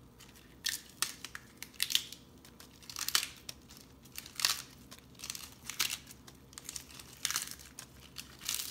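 Crisp romaine lettuce leaves being torn apart by hand: a string of short ripping sounds at uneven intervals, starting a little under a second in.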